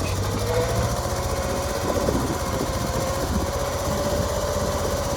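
1980 Bobcat skid loader's engine running steadily, a fast even low pulsing with a whine over it.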